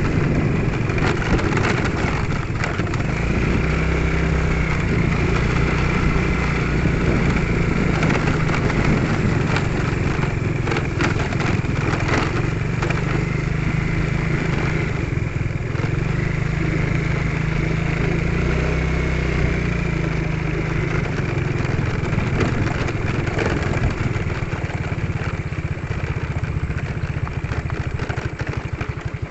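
Motorcycle engine running steadily while riding along a rough road, with scattered clatter and knocks.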